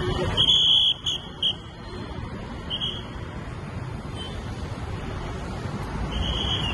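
City street traffic: a steady low road rumble with several short, high-pitched vehicle horn toots. The longest toot comes about half a second in and another near the end.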